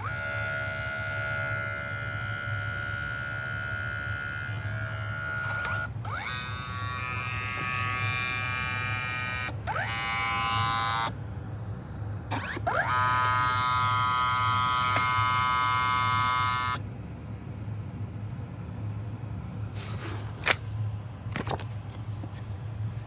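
Kodak Mini Shot 3 Retro's built-in four-pass photo printer running: a motor whine that holds a steady pitch, shifts pitch a few times with short ramps up, and stops about 17 seconds in, over a steady low hum. A few sharp clicks come near the end.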